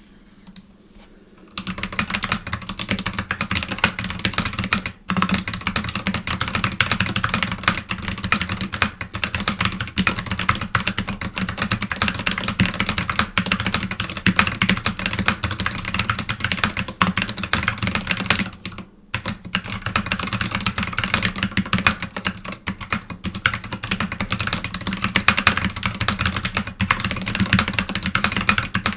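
Fast typing on a mechanical keyboard with Glorious Panda tactile switches and SA-profile keycaps: a dense, continuous stream of key clacks. It starts about a second and a half in, with brief breaks near five and nineteen seconds.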